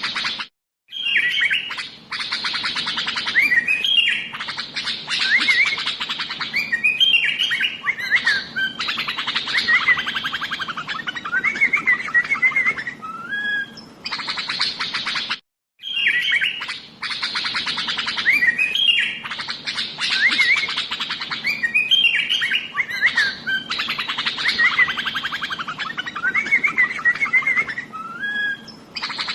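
Kutilang (sooty-headed bulbul) chattering and singing without pause: rapid trills and short whistled slurs. The song breaks off briefly about half a second in and again about halfway, and the same stretch then repeats.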